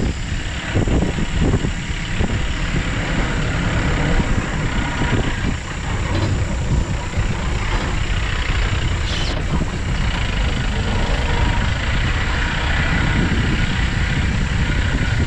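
Mahindra Bolero safari jeep driving along a bumpy dirt track: engine running with the rumble of tyres on dirt. A few knocks in the first couple of seconds and a sharp click about nine seconds in.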